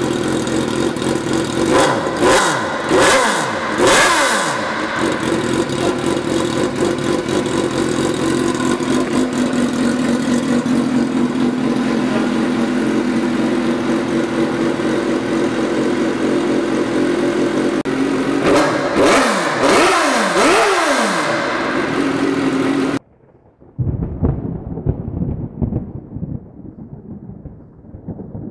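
Suzuki GSX-R 750 inline-four with an aftermarket carbon-fibre exhaust idling, with three quick throttle blips a couple of seconds in and a burst of several more around twenty seconds in. The engine then cuts off abruptly, and after a short gap a low rumbling noise begins and fades.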